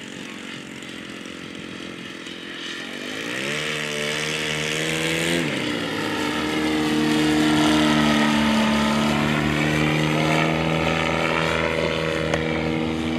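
The Valach VM120B2 120 cc four-stroke twin of a 40% scale Fokker Eindecker model plane, turning a 30x12 propeller, running in flight. Its pitch rises a few seconds in, drops abruptly, then holds steady as it grows louder with the plane coming close.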